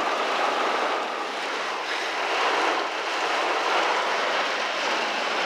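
Heavy rain falling on a car's roof and windshield, heard from inside the car as a steady, dense hiss.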